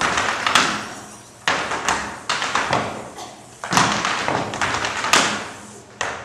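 A series of about eight sharp, loud knocks at uneven intervals, each ringing out and fading in a reverberant hall.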